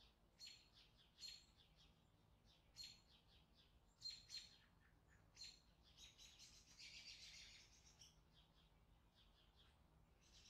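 Faint bird chirps: short, repeated high chirps, with a longer buzzy trill about six seconds in.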